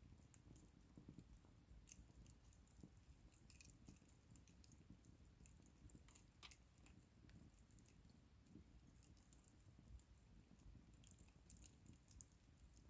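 Faint wood fire crackling: scattered small pops and ticks at irregular intervals over a low steady rumble.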